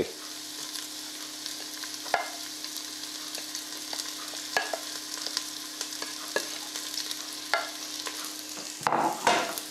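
Chopped ginger, garlic and green chilli sizzling as they drop into a little hot coconut oil in a non-stick pot, with a wooden spatula scraping them off a plate and a few light taps. A steady low hum runs underneath.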